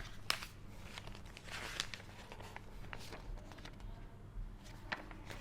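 Paper rustling and crinkling as a user manual is handled and opened, with a few soft clicks and brief rustles.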